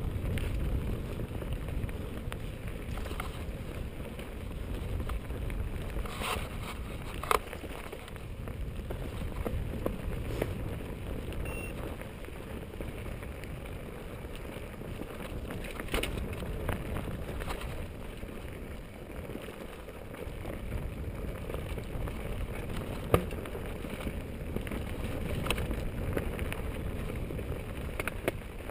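Mountain bike rolling along a dry, stony dirt singletrack, with a steady low rumble of tyre noise and wind buffeting the camera microphone. A few sharp knocks and clicks sound as the bike rattles over rocks.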